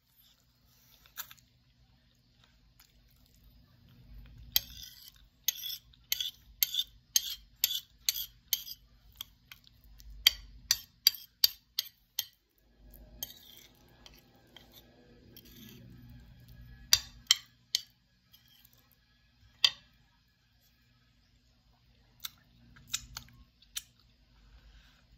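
Close-up chewing of chicken on the bone, with a run of sharp crunches at about two to three a second. A few sharp clicks follow later, as a fork scrapes food from the plate.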